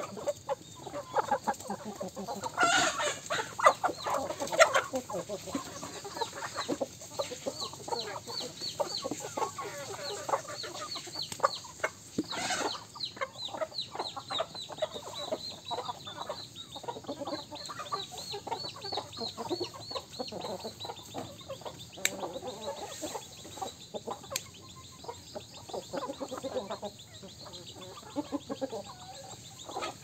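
A flock of hens and roosters clucking and calling as they forage, with louder calls about three seconds in and again near the middle. A quick, high repeated chirping runs through the middle stretch.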